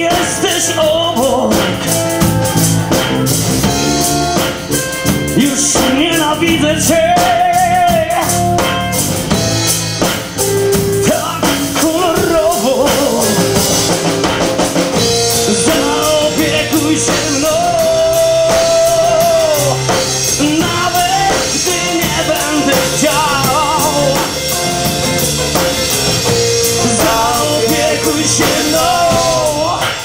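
Live rock band playing a song: a man sings over an acoustic guitar, with a drum kit and bass guitar keeping a steady beat.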